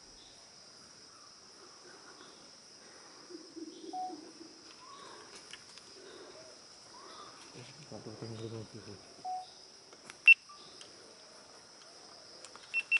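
Steady high-pitched drone of forest insects. Faint low murmurs sound under it, and a single sharp click about ten seconds in.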